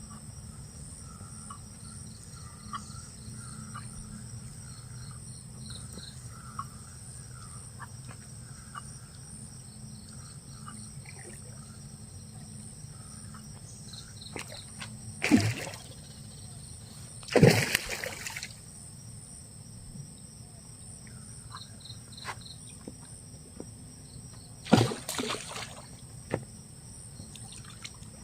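Outdoor ambience of a steady high insect buzz with scattered bird chirps, broken by three short, loud noisy bursts, two close together midway and one more later, such as splashes or handling sounds.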